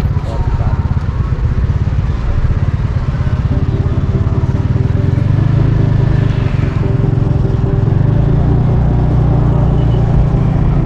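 Motorcycle engine running while riding slowly, under a loud steady low rumble. A steady engine hum comes through more clearly about three and a half seconds in.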